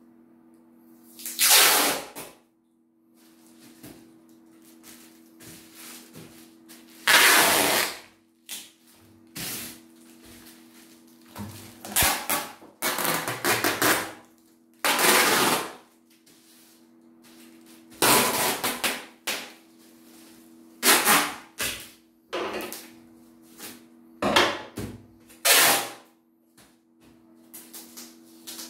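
Plastic packing tape pulled off its roll in repeated loud rips, about ten strips, each lasting up to a second or so, with crinkling of the black plastic bag being wrapped.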